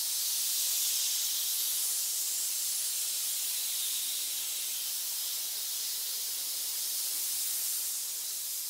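A pit of many snakes hissing together: a continuous, overlapping high hiss that swells slightly now and then.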